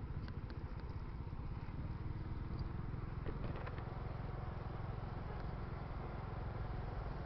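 Steady low rumble of a vehicle on the move in traffic: engine and road noise, with a few faint scattered ticks.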